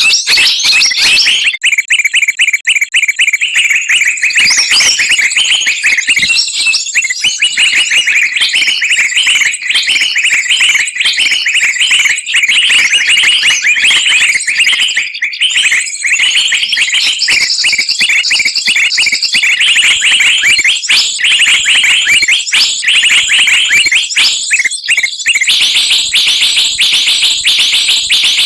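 Bird-lure recording of many small songbirds calling at once, a dense, noisy chorus of rapid repeated chirps and whistles, with a thin steady high note running above it.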